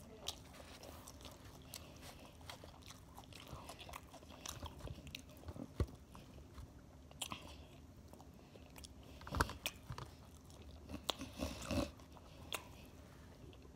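A person chewing a mouthful of salad greens close to the microphone: soft, irregular crunching, with louder clusters of crunches about nine seconds in and again near eleven to twelve seconds.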